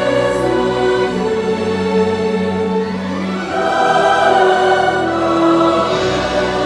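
Vocal ensemble singing long held chords in several parts, the harmony moving to new chords a little past the middle and again near the end.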